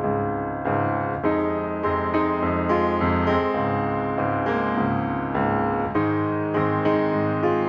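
Background piano music, notes and chords struck and left to fade.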